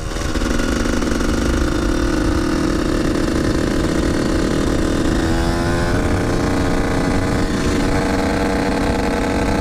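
Dirt bike engine running steadily at road speed, with wind rushing over the helmet microphone. About five seconds in, the engine note briefly changes as the throttle is worked.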